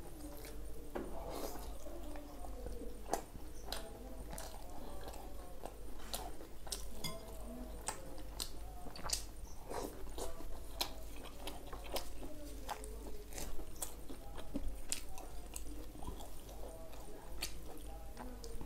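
A person chewing paratha with egg tadka by mouth close to the microphone, with frequent short clicks from chewing throughout.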